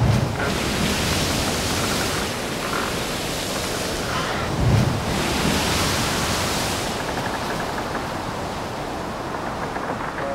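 Rough sea surf breaking and washing over a rocky shore: a loud, steady rush of noise that swells and ebbs, with a low thump at the start and another about five seconds in.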